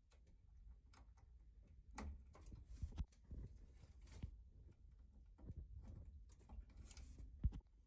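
Faint scattered clicks and a few soft knocks, irregular and unhurried, with the loudest knock near the end.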